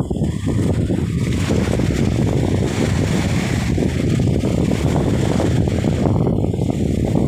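Steady wind buffeting the phone's microphone as a loud low rumble, over small waves washing onto a sandy beach.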